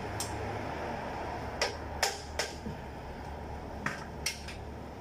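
Several sharp metallic clicks and clinks of a 17 mm wrench on a diesel pickup's oil drain plug as it is worked loose, irregularly spaced, the last few as the wrench is handled at the pit's ledge. A steady low hum runs underneath.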